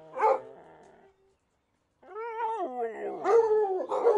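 A Doberman barks once, then after a second's pause gives a long, wavering, drawn-out cry that breaks into louder barks near the end.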